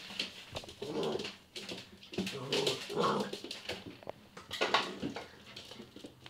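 Labrador puppy making short, repeated vocal noises, with a few sharp clicks in between.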